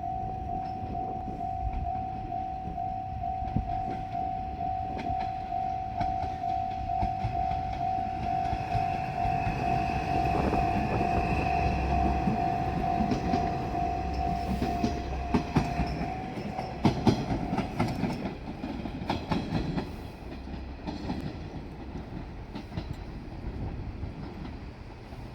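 Japanese level-crossing warning bell dinging in an even, rapid rhythm while a JR Shikoku diesel railcar passes with a building rumble; the bell cuts off after about sixteen seconds. Wheels clack over the rail joints as the train goes by, then the noise eases off.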